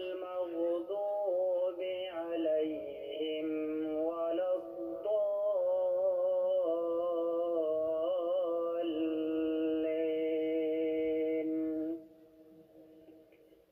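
Background music: a vocal melody of long held notes that stops about twelve seconds in.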